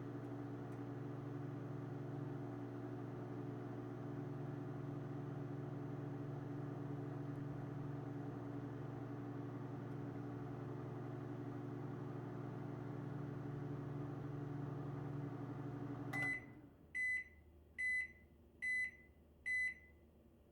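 Microwave oven running with a steady hum that stops with a click about 16 seconds in, followed by five short high beeps, evenly spaced, marking the end of the cooking cycle.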